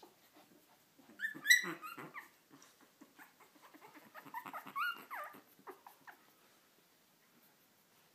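Three-week-old Lhasa Apso puppies whimpering and squeaking in two short high-pitched bouts, the first about a second in and the second around four seconds in, over soft scuffling as they crawl on the blanket.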